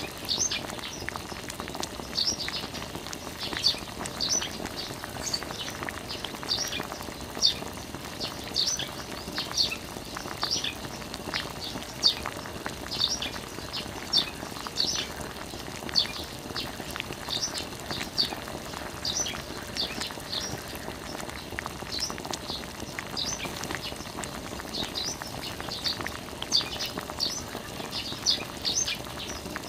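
Birds chirping repeatedly, short high chirps about one or two a second, over a steady hiss of water trickling from a thin plastic tube onto soil.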